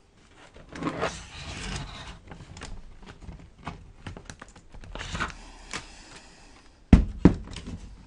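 Plastic netbook casing being handled and turned over, with rubbing and scraping and small ticks as the partly unclipped bottom cover shifts. Two sharp knocks close together about seven seconds in are the loudest sounds.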